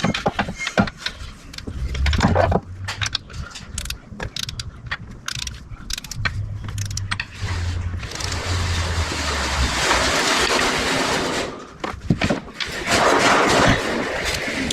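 Socket ratchet clicking and tools clinking on metal as engine bolts are worked, with a stretch of steady whirring noise about eight seconds in and again near the end.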